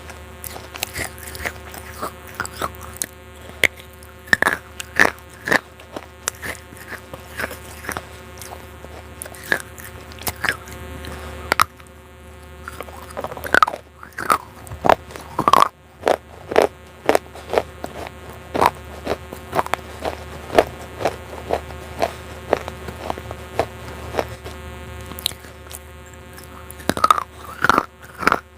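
Baked clay pot pieces being bitten and chewed close to the microphone: sharp, irregular crunches, a few at a time, some louder than others. A steady buzzing hum runs underneath.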